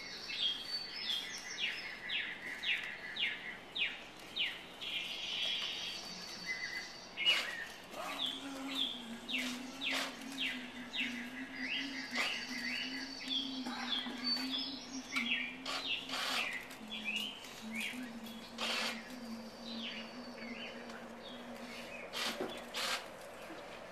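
Rapid bird-like chirping in quick runs of short falling calls. A low held tone joins it about eight seconds in and fades near the end, with a few sharp clicks.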